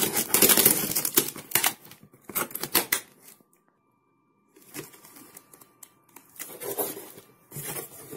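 Packing tape being ripped off a cardboard parcel and the box flaps pulled open: a dense run of crackling rips in the first two seconds, then a few clicks, a short gap of near silence, and quieter cardboard rustling.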